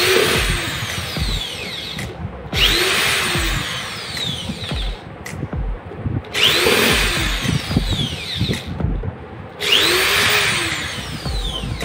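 Cordless drill backing out the screws that hold a woofer to its wooden baffle: four separate runs of about two seconds each, the motor's whine rising and then falling in pitch each time, with short pauses between.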